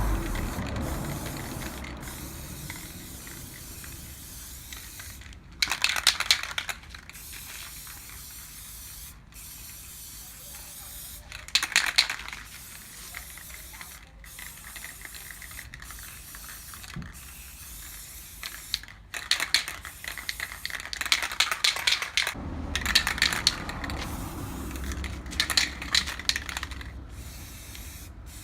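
Aerosol spray-paint can hissing in short bursts while paint is sprayed onto brake drums, the bursts a few seconds apart at first and coming more often near the end.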